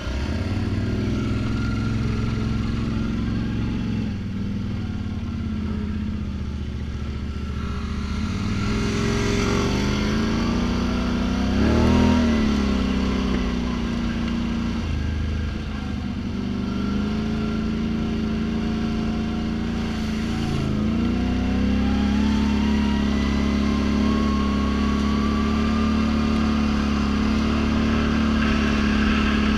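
ATV engine running while riding a dirt trail, its revs rising and falling. There is a short swell of revs about twelve seconds in, and a slow climbing whine through the second half as it speeds up.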